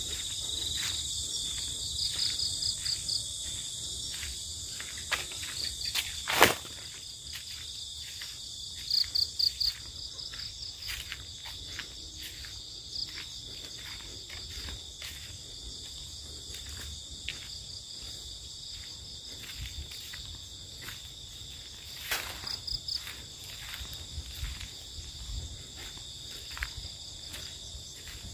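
Evening chorus of crickets and other insects: steady high-pitched buzzing at several pitches, with a louder pulsing trill in short bursts a few times. Scattered light clicks, and one sharp click about six seconds in.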